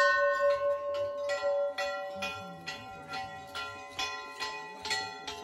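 A metal temple bell struck once, ringing out. About a second in, music with a steady plucked beat, about two beats a second, takes over.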